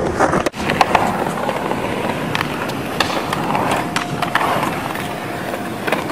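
Small plastic cruiser skateboard rolling slowly over concrete, its wheels giving a steady rolling noise with scattered clicks and knocks.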